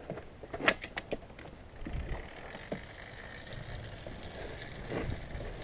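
Handling noise as dirt bikes are pushed through grass and dry brush: a few sharp cracks and knocks in the first second, then a low steady rumble.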